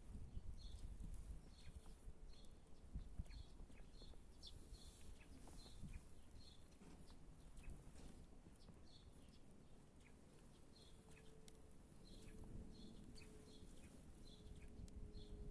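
A small bird calling a short, high note over and over, about two a second, faint against a low outdoor rumble. A faint steady hum comes in from about two-thirds of the way through.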